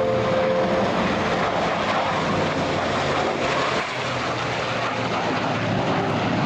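Engine noise of a mixed formation flypast of jet fighters (an F-15 Eagle, an F-22 Raptor and an F-86 Sabre) and a P-51 Mustang: steady jet roar with a low propeller-engine drone underneath, swelling a little about two to three seconds in.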